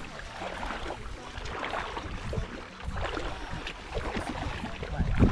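Shallow water sloshing and splashing around legs wading through it while a net is dragged, in irregular small splashes; a louder splash near the end.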